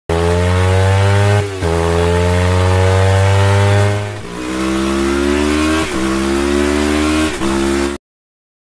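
Motorcycle engine accelerating hard through the gears, its pitch dipping briefly at each of four gear changes before climbing again, then cutting off suddenly near the end.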